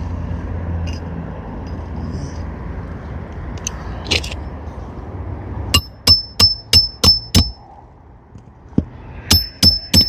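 Hammer driving a roofing nail through a shingle into the roof decking: a quick run of six ringing strikes about halfway through, then several more near the end. A low rumble fills the first few seconds.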